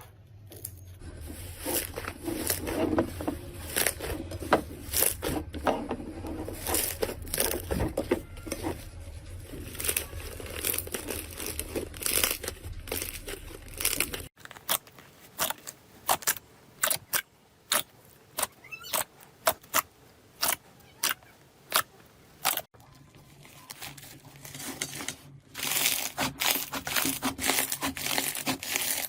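Slime being worked by hand, with dense crackling and clicking pops. About halfway through the pops thin out to separate sharp clicks, and they thicken into crackling again near the end.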